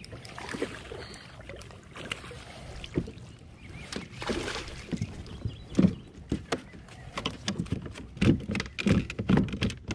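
Hooked fish splashing at the surface beside a kayak as it is scooped into a landing net, then a quick run of sharp knocks and thumps against the kayak as the net and fish come aboard.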